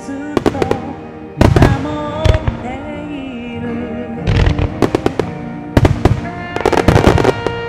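Aerial firework shells bursting in clusters of sharp bangs and crackling, the loudest about a second and a half in, over music set to a hymn melody from the show's loudspeakers.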